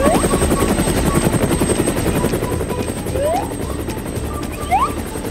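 Toy helicopter rotor sound effect: a rapid, even chopping that fades out about halfway through, with short rising whistle-like sweeps on top.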